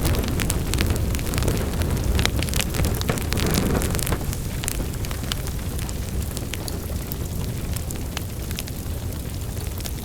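Wood fire burning in a fireplace: a steady low roar of the flames with irregular sharp crackles and pops, the roar easing slightly about four seconds in.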